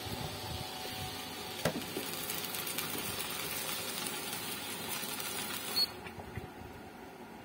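Water boiling in a stainless steel pot on a homemade induction cooktop, a steady hiss. About six seconds in the high part of the hiss cuts off suddenly as the cooktop's button is pressed.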